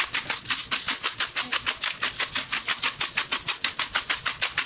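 Pepper grinder being twisted to grind black pepper, a fast, even run of dry ratcheting clicks, about seven a second.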